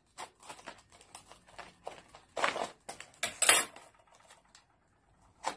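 Scissors snipping through a stiff plastic blister pack and the plastic crackling as it is pried apart: a string of small clicks with two louder crackles about two and a half and three and a half seconds in, dying away about four and a half seconds in.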